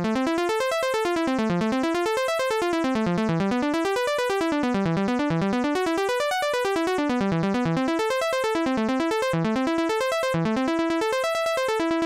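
Logic Pro's Retro Synth software synthesizer played by the Arpeggiator in up-and-down note order: a fast, even stream of synth notes climbing and falling over and over across a latched chord. The pattern grows longer as notes are added to the arpeggio.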